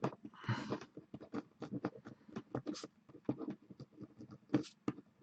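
A string of faint, irregular light clicks, about several a second, with a few short scratchy rustles, from small desk work such as typing or writing.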